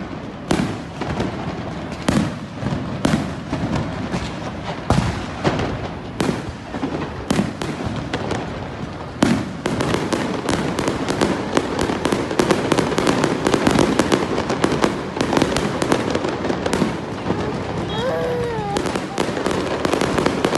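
Aerial fireworks bursting overhead: separate irregular bangs at first, then from about nine seconds in a dense run of crackling pops as crackle stars and trails go off together.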